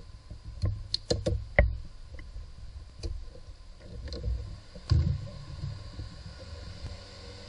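Handling noise in a car engine bay: a flexible spring-shafted pickup tool and hands working among the parts, with a quick run of sharp clicks and knocks early on, the loudest about a second and a half in, then a few scattered knocks, one near the five-second mark.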